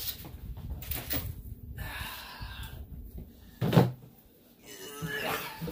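Packaging being handled and worked at with pliers: scattered clicks and soft plastic rustling, with one loud knock just under four seconds in.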